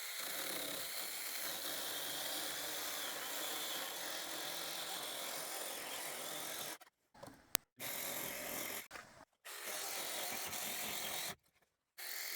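Battery-powered Saker 6-inch mini electric chainsaw running and cutting through the top of a wooden post, stopping abruptly a few times with one sharp click in a pause.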